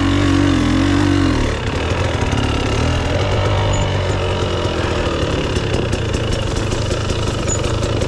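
Dirt bike engine revving up and down in the first second and a half, then dropping to a low, steady run.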